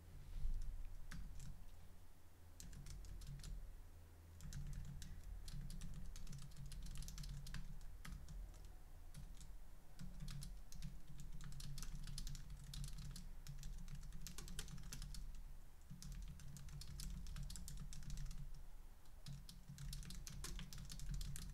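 Typing on a computer keyboard: runs of quick keystrokes with short pauses between them, over a low steady hum.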